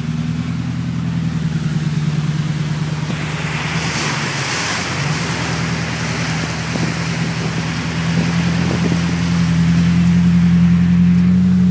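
Ford F-250's 5.4-litre V8 running steadily, heard from inside the cab while the truck drives through floodwater, with a rush of splashing water about three to six seconds in. The engine grows louder near the end as the truck accelerates.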